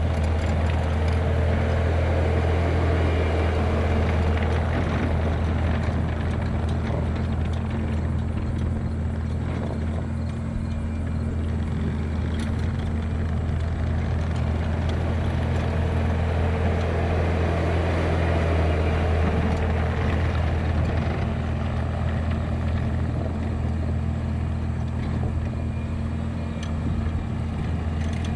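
Engine of heavy earthmoving equipment running steadily at work, with a higher whine coming in twice.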